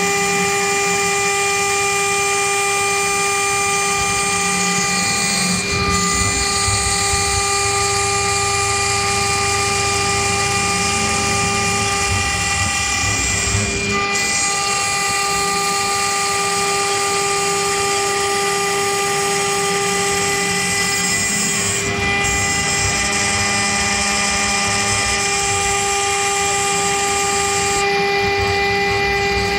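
CNC router spindle and end mill milling 10 mm aluminium plate: a steady high machining whine of several held tones over a hiss. The tones break briefly about every eight seconds.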